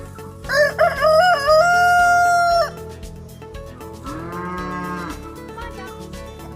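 A rooster crowing once, loud, with a wavering start and a long held final note. A second, quieter and lower animal call follows about four seconds in.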